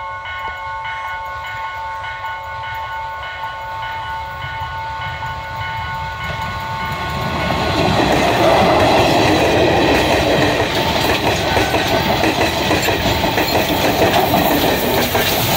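Sri Lanka Railways Class S diesel multiple unit approaching with a steady whine. Around halfway through its coaches pass close by, and it turns to a louder rumble of wheels clattering on the track.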